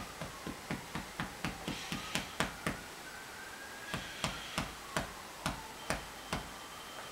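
A quick, regular series of sharp clicks or taps, about three to four a second, which pauses for about a second and then resumes a little slower.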